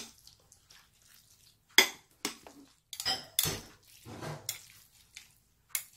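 Metal chopsticks clinking and scraping against a ceramic plate while mixing oiled black-bean-sauce noodles. There are a few sharp clinks scattered through, with softer stirring between.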